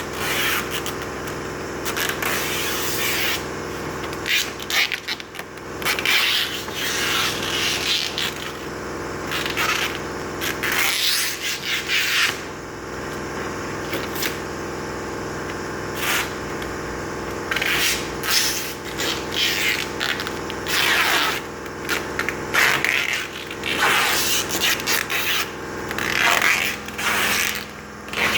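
Irregular scraping and rubbing, in repeated strokes every second or two, over a steady low hum.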